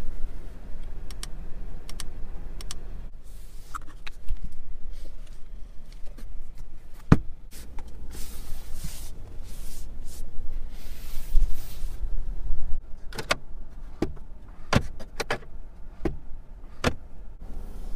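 Hongqi H6 cabin controls and trim being handled: a series of separate sharp clicks and knocks several seconds apart, with a stretch of hiss about eight seconds in.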